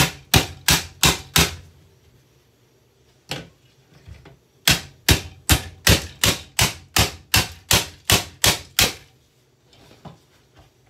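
Repeated sharp blows striking a Bissell handheld vacuum cleaner as it is smashed apart: a quick run of about five, a single blow, then a steady run of about a dozen at roughly three a second.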